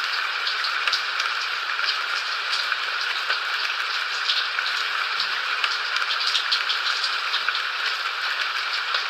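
Steady rain falling: a continuous even hiss with many small, separate drop ticks scattered through it.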